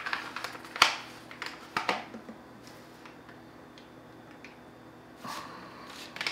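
A plastic jug of acrylic bonding liquid being handled and poured into a plastic measuring cup: a few sharp clicks and knocks in the first two seconds or so, then a quieter stretch, with a short rustle a little after five seconds.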